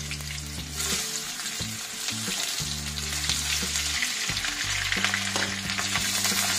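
Brinjal wedges frying in hot oil in a nonstick kadai, a steady sizzle throughout, with a wooden spatula stirring them near the end.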